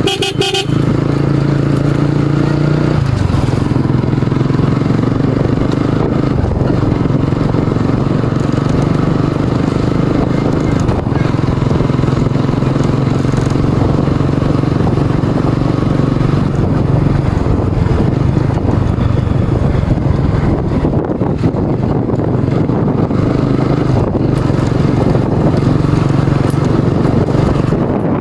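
Motorcycle engine running steadily while being ridden, its note dropping about three seconds in.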